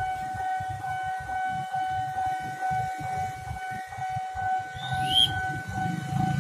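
Railway level-crossing warning alarm sounding one steady high tone over a low, irregular rumble that grows near the end. A brief high chirp comes about five seconds in.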